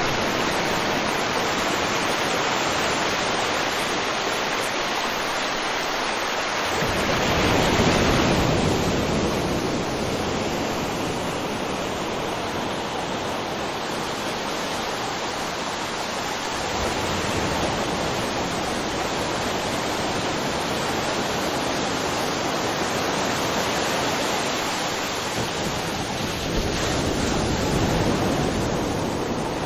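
River water flowing: a steady rushing that swells louder about seven seconds in and again near the end.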